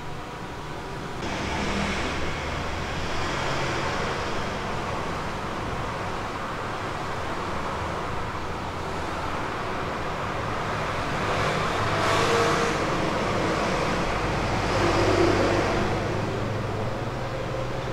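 Road traffic noise: a steady rumble of passing vehicles that swells twice in the second half as vehicles go by.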